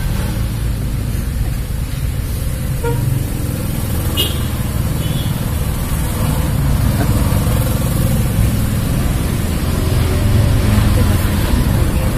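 Steady low rumble of motor-vehicle engines running nearby, growing a little louder in the second half.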